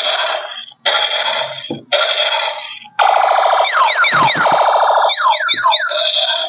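Electronic toy sound effects from a small, thin-sounding speaker: three short bursts of sound, then, about three seconds in, a buzzing alarm with a run of quick falling electronic sweeps like a toy siren.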